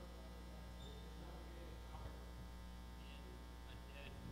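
Steady low electrical mains hum through the sound system, with a faint voice from someone off-microphone barely showing beneath it.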